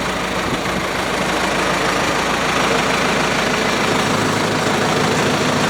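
The John Deere 4045 4.5-litre diesel engine of a 2013 SAISCO Model 813 wood chipper, running steadily at idle.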